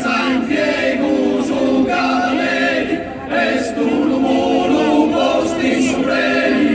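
Mixed Sardinian folk choir singing a cappella: sustained chords over a steady held low note, with a brief breath break about three seconds in.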